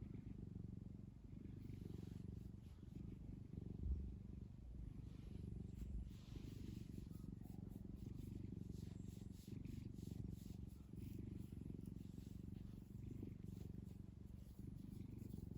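Domestic cat purring steadily in a low, even rumble, with two soft low thumps about four and six seconds in.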